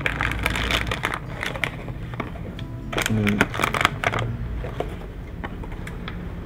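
Paper and cardboard packaging being handled: quick rustles and clicks, thickest in the first two seconds, as leaflets and inserts are taken out of a graphics card box.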